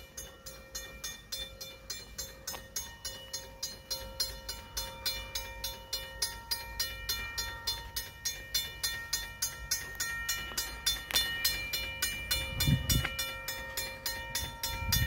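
Freight train cars rolling slowly past a grade crossing, with the crossing bell ringing steadily at about three strikes a second. The low rumble of the rolling cars grows louder toward the end.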